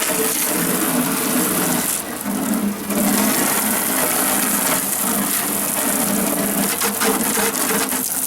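Water spraying steadily from a garden hose, a continuous hissing rush, used to rinse a CRT television's chassis and cabinet.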